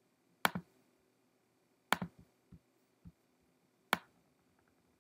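Three sharp computer mouse clicks about one and a half to two seconds apart, with a few softer, duller knocks between them.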